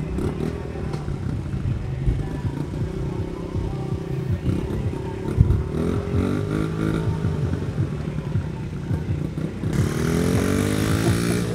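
Small Honda mini dirt bike engine running, its pitch wavering as the throttle is blipped, then rising near the end as the bike pulls away.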